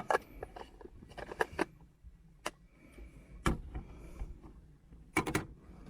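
Scattered sharp plastic clicks and knocks from the Aicok portable Nespresso machine being closed and handled, a few of them in quick pairs, over a low steady rumble.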